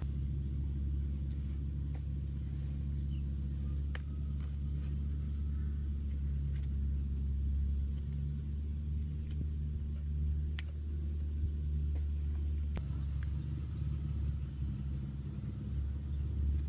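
A steady low rumble, with a thin, steady high-pitched tone above it and a few faint clicks.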